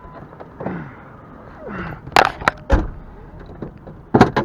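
Several sharp knocks and clacks, three close together about halfway through and a louder double knock near the end, over a steady background rumble.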